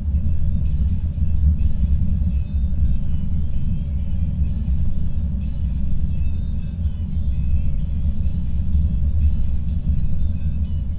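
Steady low rumble of a car driving at highway speed: tyre, road and engine noise.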